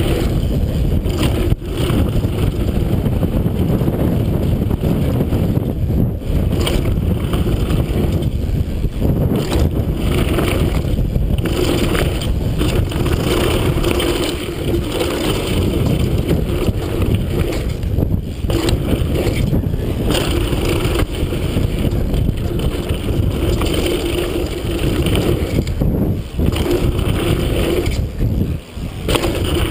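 Mountain bike ridden fast down a dirt jump trail, heard from a chest-mounted camera: steady wind rush over the microphone and tyres rolling over dirt and gravel, with the bike rattling. Occasional sharp knocks come from hitting bumps and landing jumps.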